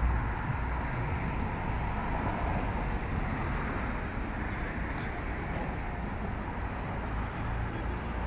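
Steady road-traffic noise: cars driving by with a low rumble.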